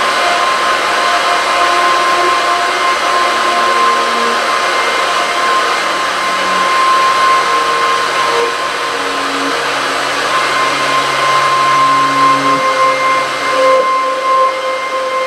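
Live drone music: a dense wall of hiss with long held tones layered in. A high tone holds steady throughout, while lower tones swell in and drop out every few seconds.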